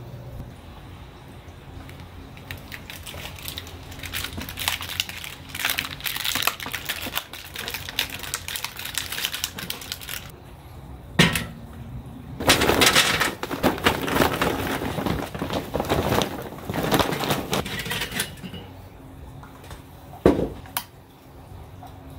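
Charcoal briquettes clattering and a metal chimney starter knocking on the steel grate of a kettle grill while the grill is set up for lighting. Scattered clacks at first, a sharp knock a little past halfway, then several seconds of dense clattering, and another sharp knock near the end.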